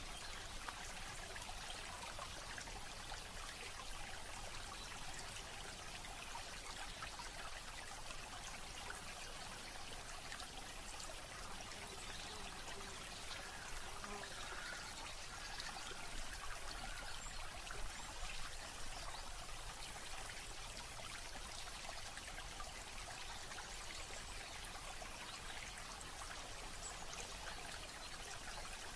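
Steady running water, trickling without pause.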